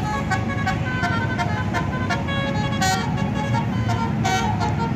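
Bus 'telolet basuri' multi-tone horn playing a fast tune of short stepped notes, over a low rumble.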